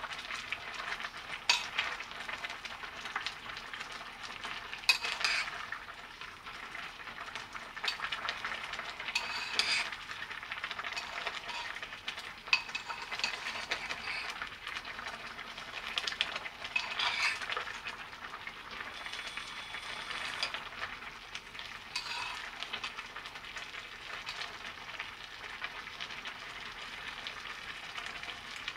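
A pot of soup simmering and bubbling on a gas burner while a metal spoon stirs it, with short clinks and scrapes of the spoon against the pot every few seconds.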